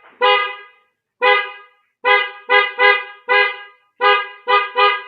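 Hella snail-type car horns wired through a relay on a Toyota Agya, sounded in a string of about nine short honks, some singly and some in quick runs of two or three. Each honk is a two-note chord that starts sharply and fades quickly, and the horns are very loud.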